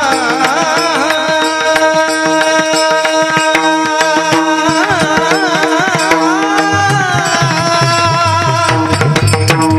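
Devotional bhajan music: tabla playing under a wavering, ornamented melodic line over a steady drone note. A low bass part drops out for a few seconds mid-way and comes back about seven seconds in.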